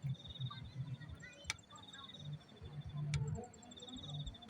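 A cricket-like insect trilling: high-pitched, finely pulsed trills of about a second each, three times, with a couple of sharp clicks between.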